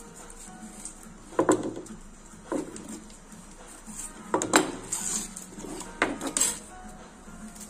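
A knife and gloved hands working a palometa fish on a cutting board make about half a dozen sharp knocks and scrapes. The loudest come about one and a half seconds in and again around four and a half seconds in.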